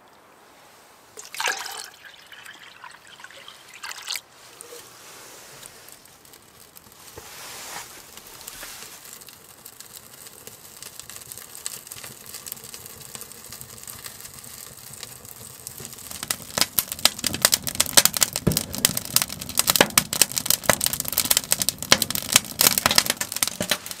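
Water trickling in a small creek. Then split firewood crackling in a small wood-burning tent stove, the pops growing dense and louder about two-thirds of the way in.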